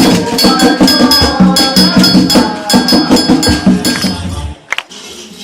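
Tambor de crioula drumming: hand drums with rapid, sharp clicking strikes over them. It cuts off suddenly about four and a half seconds in; after a single click, a quieter rattling continues.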